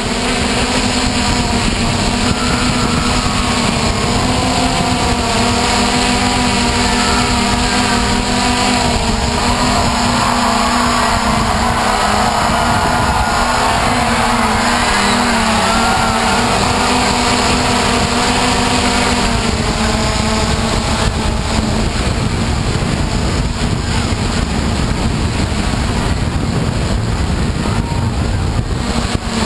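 Hexacopter drone's electric motors and propellers buzzing steadily, heard from the camera on board, the hum wavering a little in pitch. About twenty seconds in the humming tones fade and a plainer rushing noise remains.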